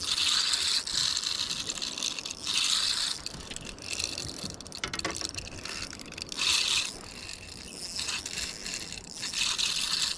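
Spinning reel being cranked in spurts, its gears and handle giving a ratcheting whirr, while a hooked catfish is reeled in. A short run of rapid ticks comes about halfway through.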